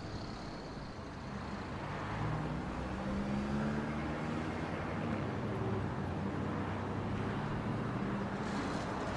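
Street traffic passing close by: cars and a van driving past, with a low engine hum that grows louder about two seconds in.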